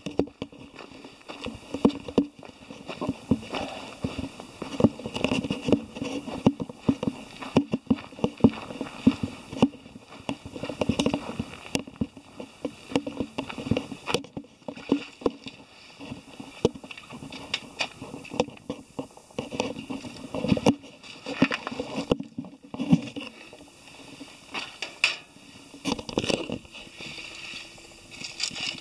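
Footsteps of a person walking briskly over pavement and a path: a continuous run of irregular short scuffs and knocks, several a second, mixed with handling noise from the handheld camera.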